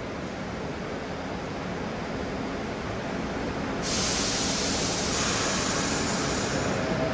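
New York City subway train running through the station, its rumble slowly growing louder. A sudden loud hiss joins about four seconds in.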